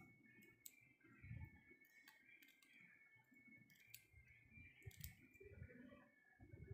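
Scissors snipping a small piece of clear plastic OHP transparency sheet: faint, scattered clicks of the blades, a few of them sharper.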